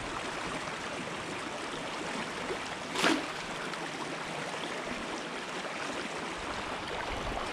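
Shallow rocky stream running steadily. About three seconds in there is one short splash as a thrown cast net lands in the water.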